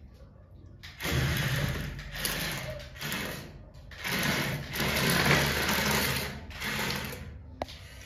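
Battery-powered toy excavator's small electric motor and plastic gears whirring in about four stop-start bursts as its digging arm moves and it drives.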